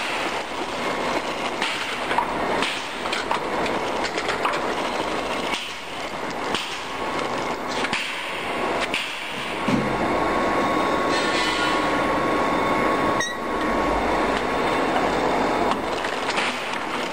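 Circular scarf-knitting machine running, its needle cylinder and yarn feeders making a steady mechanical clatter as it knits a tube of yarn. About ten seconds in the running grows louder and more even, with a faint thin whine.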